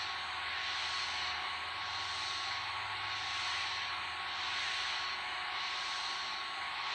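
Vacuum cleaner running steadily: an even whooshing hiss with a thin steady whine through it and a faint slow pulse about once a second.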